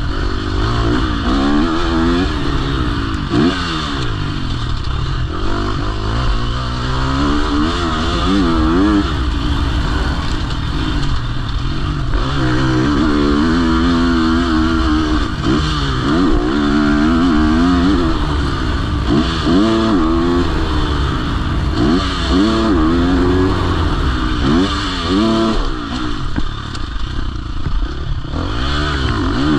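KTM SX-F four-stroke motocross bike engine running hard on a dirt track. Its pitch climbs and drops again and again as the throttle is opened and shut.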